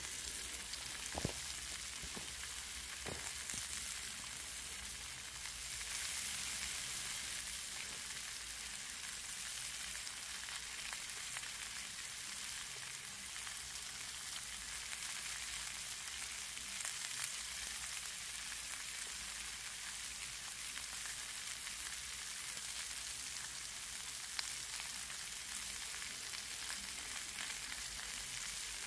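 Bone-in beef short ribs (uwdae-galbi) sizzling steadily on an iron griddle plate, with a few small ticks.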